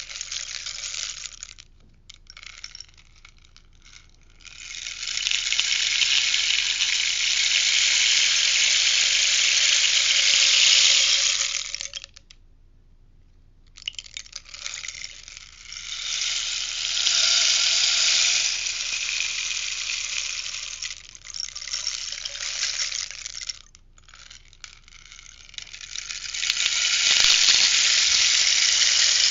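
Rainstick tipped over again and again, its filling trickling down through the tube in a hissing cascade that swells and fades over several seconds each time. There are three short pauses between the turns.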